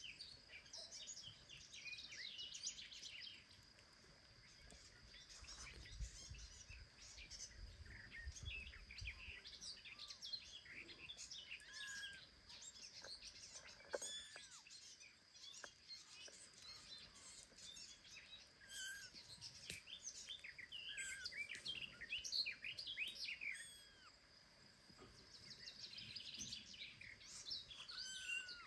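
Small birds chirping all through, over a steady high insect hum. A very young kitten gives a few short mews, one about halfway through and one near the end.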